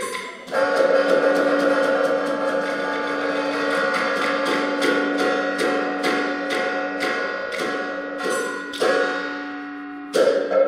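Sichuan opera percussion band playing: a fast, even beat of sharp clapper or woodblock strokes, about three a second, over ringing gongs and cymbals. The beat thins out for a moment near the end, then the full band crashes back in loud.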